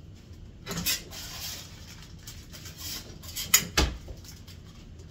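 Kitchen handling noises: a plastic bag rustling as celery stalks are bagged, with a few sharp knocks against the counter. The loudest is a heavy thud about four seconds in.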